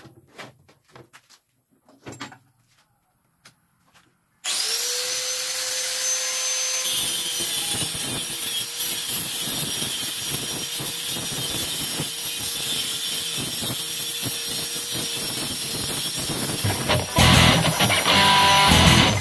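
A few light knocks and clicks, then about four seconds in an electric angle grinder starts with a steady whine and cuts through the steel wire of an electric-fan guard, its pitch dipping slightly as the disc bites. Near the end, louder guitar music comes in over the grinding.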